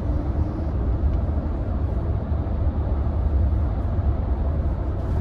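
Steady low rumble of a car on the move, heard from inside the cabin: road and engine noise with no other distinct events.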